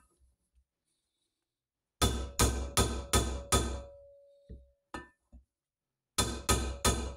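A soft-faced mallet strikes a bearing driver, tapping the timing-side main bearing into a heated aluminium Norton Commando 850 crankcase half; the bearing would not drop in freely, so it is being driven home before the case cools. Five quick blows come about two seconds in, then a few light taps, then four more blows near the end, each with a short metallic ring.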